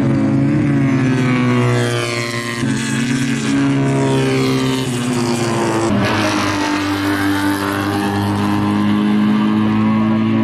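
Small two-cylinder Fiat 500 race cars running hard, their engine notes climbing and dropping with the revs and gear changes, more than one engine heard at once. About six seconds in the sound changes abruptly to a steadier note that rises slowly as the cars come closer.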